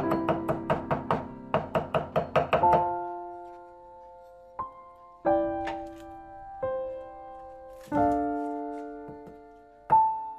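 Cleaver chopping garlic on a wooden chopping board: a fast run of knocks, about six a second, with a short break, stopping about three seconds in. Background instrumental music with plucked and piano-like notes plays throughout and carries on alone as sparse, ringing notes.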